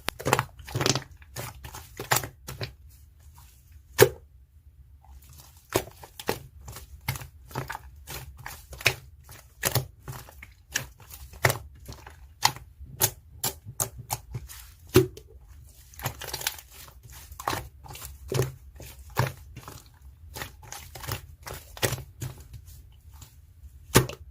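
A run of sharp, irregular clicks and taps, about one to three a second, with a short pause a little after four seconds, over a faint steady low hum.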